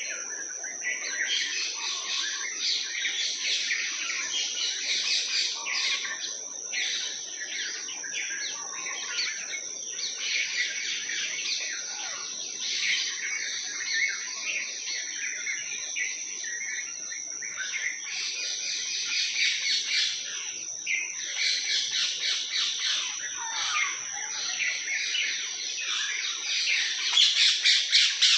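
Many small birds chirping and twittering at once in a dense, continuous chorus of overlapping calls, loudest near the end, with a steady high-pitched tone running underneath.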